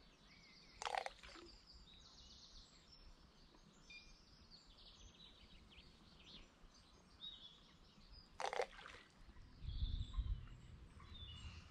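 Small birds chirping and singing over quiet outdoor ambience. There are two short, louder sharp sounds, one about a second in and one near the end, and a brief low rumble just after the second.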